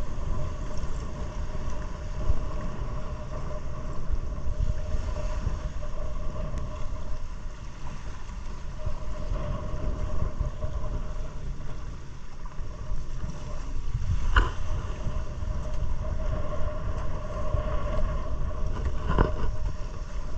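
150-horsepower outboard motor running steadily under way, its hum heard through heavy wind buffeting on the microphone. Two sharp thumps, about two-thirds of the way through and near the end, as the hull slams into the waves.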